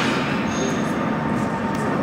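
Tatra T3 tram approaching on street rails: a steady low rumble under a continuous hiss of city street noise.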